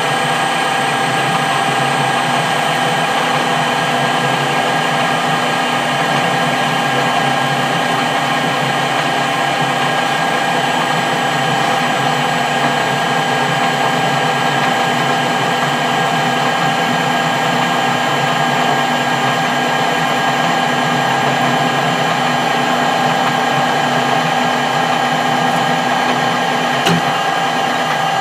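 Metal lathe running steadily under power, taking a turning pass on a small workpiece: an even hum with several held tones from the spindle and gearing. There is one small click near the end.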